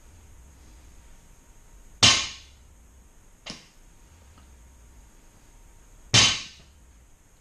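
Barbell with rubber bumper plates set down hard at the bottom of deadlift reps: two loud clanking thuds about four seconds apart, about two and six seconds in, with a lighter knock between them.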